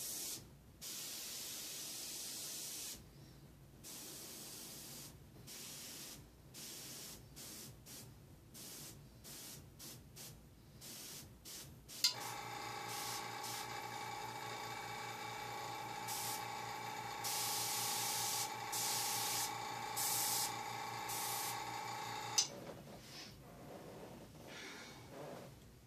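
Airbrush spraying in short on-off bursts of hiss. About twelve seconds in, the airbrush air compressor switches on with a click and runs with a steady hum and whine for about ten seconds, then shuts off with a click, while the spraying goes on.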